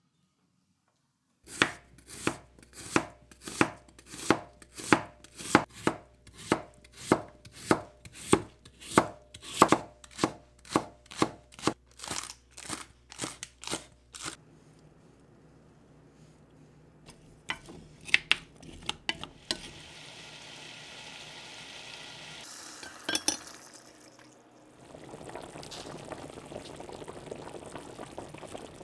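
Vegetable knife chopping green onions on a wooden cutting board, about two even strokes a second for some twelve seconds. After it come a few clicks and knocks, then the steady bubbling of a pot of water at the boil.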